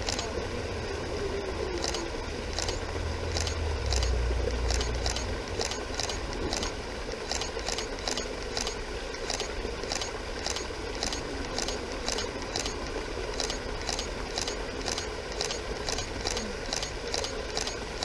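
Small waterfall splashing steadily into a pool, over a high chirp that repeats evenly about two to three times a second. A low rumble swells around four seconds in.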